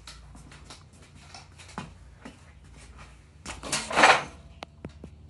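Clatter and clicks of objects being handled and set down at a metal workbench, with a louder rush of noise just under a second long about four seconds in, followed by a few sharp clicks.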